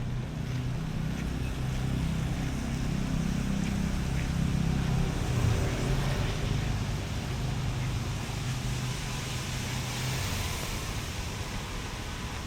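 A motor vehicle going by on a wet road. Its engine hum swells a few seconds in and fades near the end, over a steady hiss of rain and wet tyres.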